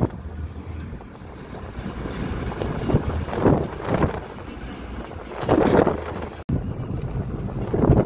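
Wind buffeting the microphone through the open window of a moving car, over the steady low rumble of the car and road, swelling in gusts every two seconds or so.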